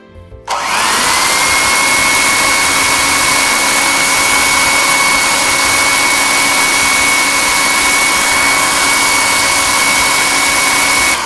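Electric hand mixer beating cheese cream into whipped cream. It switches on about half a second in, its whine rising quickly as the motor spins up, runs at a steady speed, and cuts off near the end.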